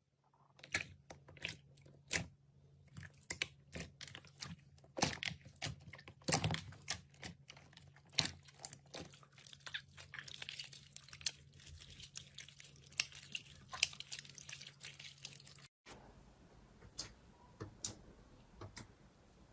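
Slime being pressed and worked by hand, making rapid, irregular crackles and pops. About 16 seconds in, the sound cuts off abruptly and gives way to sparser single clicks.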